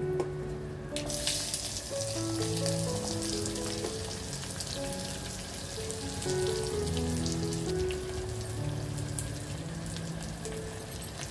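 Sliced shallots and dried chillies sizzling and crackling in hot oil in a clay pot, starting about a second in when they hit the oil. Light instrumental background music plays throughout.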